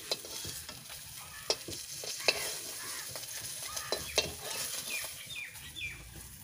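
Fish frying in hot oil in a kadai, with a steady sizzle. A metal spoon clinks and scrapes against the pan again and again as the fried pieces are lifted out.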